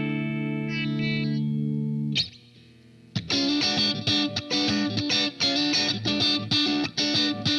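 Electric guitar, a Fender Stratocaster, played through distortion pedals. A sustained chord rings until it is cut off about two seconds in. After a second's pause comes a fast, choppy distorted riff of short notes with many quick stops.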